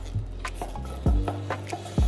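Background music with a bass beat about once a second.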